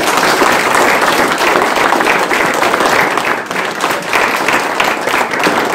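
A room full of people applauding, a loud, steady round of clapping.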